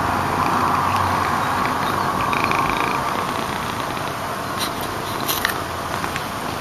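A resting domestic cat's steady rumbling breath, with a few faint short clicks about five seconds in.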